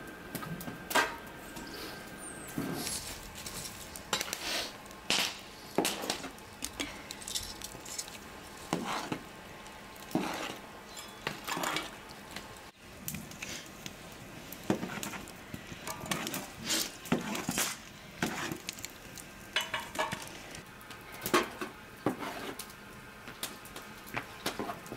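Irregular metal clinks and knocks from a stainless steel samovar being handled and set up, mixed with the snaps and knocks of kindling wood.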